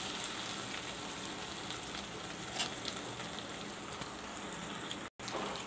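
Okra and mutton frying in a metal pot, a steady sizzle with a few light clicks of a metal spoon; the sound cuts out for an instant near the end.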